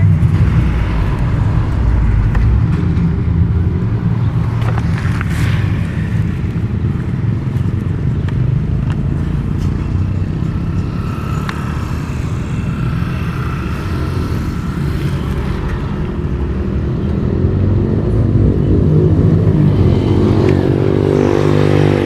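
Steady low rumble of a running motor vehicle, with an engine note that shifts in pitch near the end.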